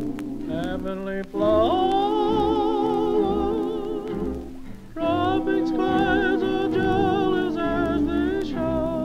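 Background music: a slow melody held in long notes with strong vibrato over a bass line, with short breaks between phrases about a second in and near the middle.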